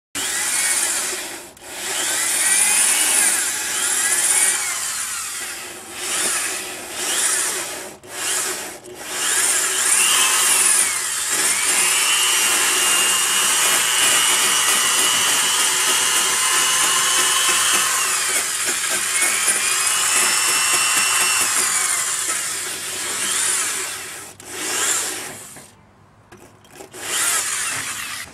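A wire brush spun by a handheld power tool scrubbing corrosion out of the bearing bore of a Maytag Neptune washer's outer tub. It runs in several short bursts, then a long run of about ten seconds in the middle, the motor's pitch rising and falling as it speeds up and slows.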